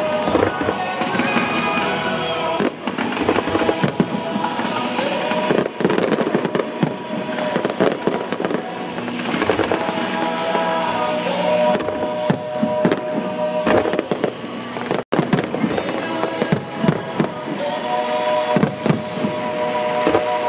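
Fireworks going off in a show: a dense run of bangs and crackles from fountains and aerial shells, with music playing underneath in long held notes.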